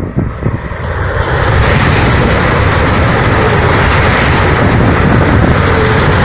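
Talgo 350 (Renfe AVE) high-speed train passing close by at speed: a loud, steady rushing roar that builds over the first second or so and then holds.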